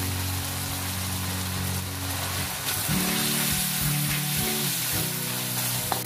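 Background music of held low notes, changing chord about halfway, over a steady sizzle of chicken pieces frying in oil in a wok.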